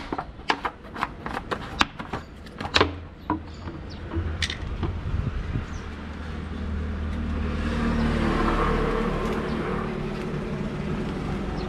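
A string of sharp clicks and knocks from handling gear, then a road vehicle passing, its noise swelling and easing off over a low steady hum.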